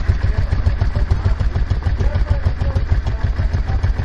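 Motor scooter's engine idling, a steady low rumble of rapid even pulses heard close up.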